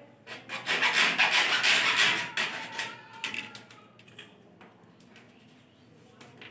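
A bare hacksaw blade sawing through white PVC electrical conduit in quick back-and-forth strokes for about two seconds, until the cut stops. After that come a few faint clicks of brick rubble being handled.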